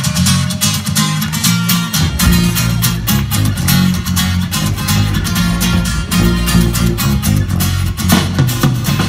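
Live band music: an amplified acoustic guitar strumming a steady rhythm, with an electric bass guitar coming in about two seconds in.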